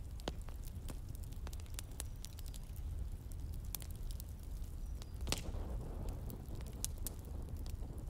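Crackling fire: irregular pops and crackles over a steady low rumble. About five seconds in, a book page is turned with a short paper rustle.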